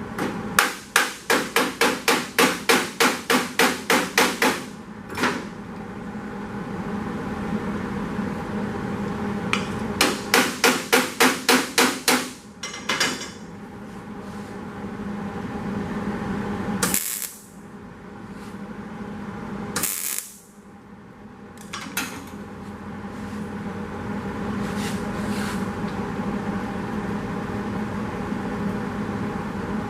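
Hammer blows on a Model A's sheet-steel side skirt: two runs of rapid, even strikes at about four a second, the first ending about four seconds in and the second lasting a couple of seconds near the middle. A steady noise fills the gaps, with a few single knocks later on.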